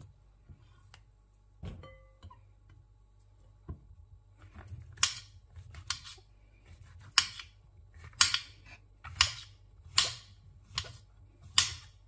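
Kitchen knife slicing fresh button mushrooms, the blade knocking sharply on a hard cutting board at the end of each cut. A couple of scattered knocks come first, then about one stroke a second through the second half.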